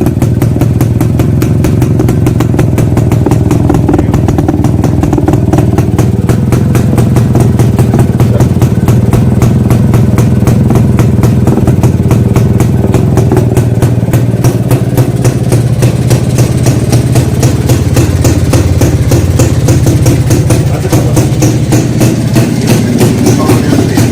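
Old Jawa motorcycle's two-stroke single-cylinder engine running steadily, its rapid exhaust pulses even throughout.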